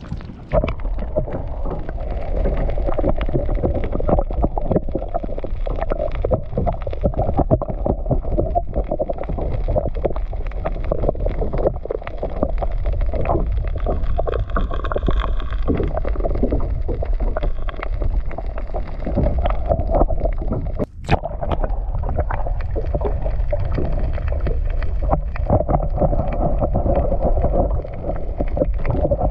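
Muffled rushing and sloshing of water around a camera held underwater, with a steady stream of small crackles and knocks. It drops out for a moment about two-thirds of the way through.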